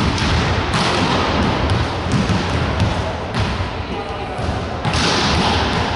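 Volleyballs being hit and bouncing on a wooden gym floor during a warm-up: a scatter of irregular thumps and slaps.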